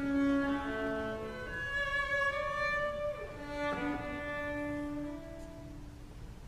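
Solo cello playing a melody of long bowed notes, each held for about a second before moving to the next, growing softer near the end.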